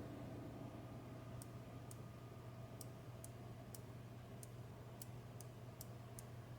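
Faint, light clicks of small parts of a washer door lock assembly being handled and fitted: about a dozen sharp ticks at uneven gaps of roughly half a second, over a steady low hum.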